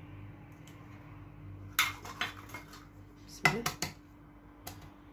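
Hard knocks and clicks against a glazed earthenware mixing bowl, in two short clusters of a few strokes each, about two seconds in and about three and a half seconds in, over a faint steady hum.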